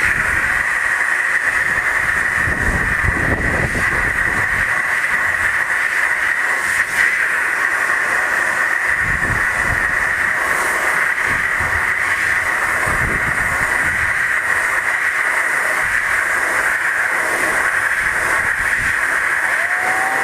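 Compressed air from a scuba tank blasting steadily against an orange to spin it, a loud, unbroken high hiss, with an uneven low rumble underneath.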